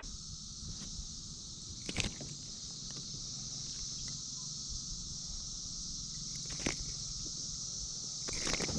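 Steady, high-pitched chorus of insects, with a few faint knocks about two seconds in, near seven seconds, and near the end.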